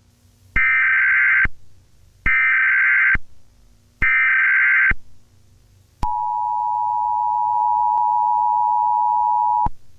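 Emergency Alert System tones: three short bursts of screechy digital data (the SAME header), each just under a second long, then the steady two-tone EAS attention signal held for nearly four seconds before it cuts off suddenly.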